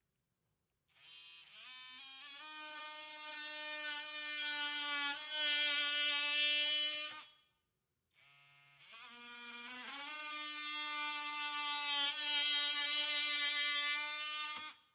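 DeWalt 20V Max oscillating multi-tool plunge-cutting a notch into a hemlock board, in two runs with a short pause between them. Each run starts with a rising whine as the tool spins up. It then settles into a steady high buzz that gets louder as the blade bites into the wood.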